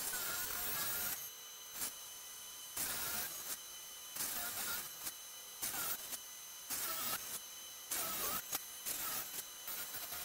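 Table saw running with a steady motor whine, its blade biting into a thin wood panel in about ten short cuts, each under a second, as the board is turned between cuts to trim it round.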